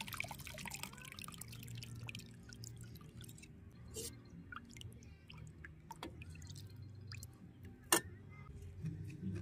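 Liquor trickling from a bottle into a small cup for about the first second, then a steel ladle clinking a few times against a stainless-steel pot of bone broth, the sharpest clink near the end.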